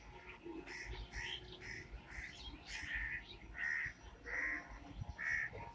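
Birds calling: a run of short, repeated calls, about two a second, loudest in the middle, over a low background hum.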